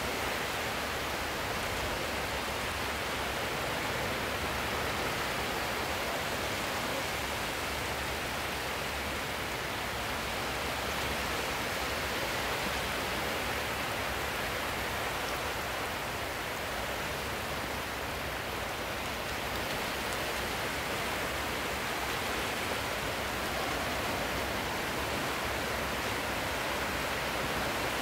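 Sea surf washing in a steady, even rush of noise.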